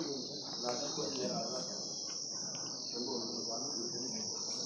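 Insects droning in one steady, unbroken high-pitched buzz, with faint voices talking underneath.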